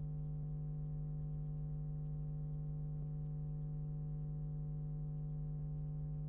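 Steady low electrical hum, with fainter higher tones layered above it, on the broadcast audio line.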